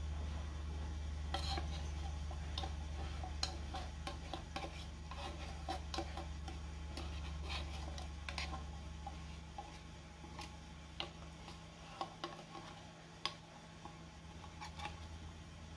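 Scattered faint clicks and scrapes of a metal spoon working against an opened tin can of condensed milk as it is emptied into a wok. Under them runs a steady low hum that fades out about ten seconds in.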